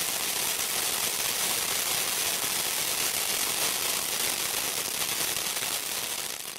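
FF-803 firework fountain burning, spraying sparks with a steady dense hiss and crackle. It begins to die down near the end.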